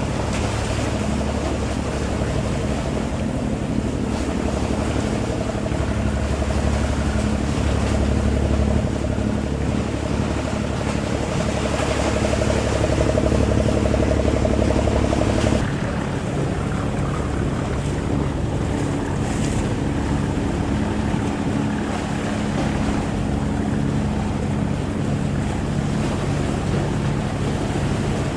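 Boat engine running steadily, with wind and water noise. About halfway through the engine note changes abruptly and the low rumble drops.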